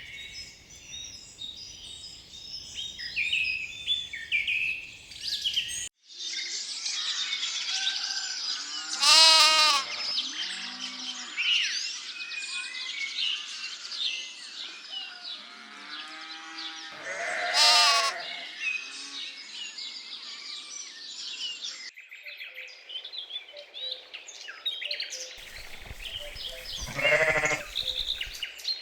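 Sheep bleating: three loud, drawn-out bleats spread through the stretch, over continuous songbird chirping.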